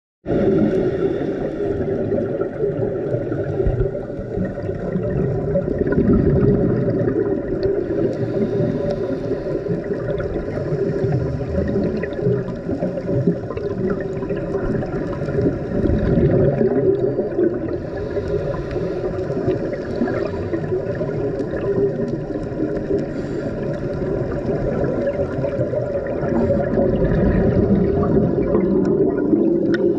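Underwater sound picked up through a camera's waterproof housing: a steady, muffled low rush of water with the gurgle of scuba divers' exhaled regulator bubbles, and a faint steady hum running through it.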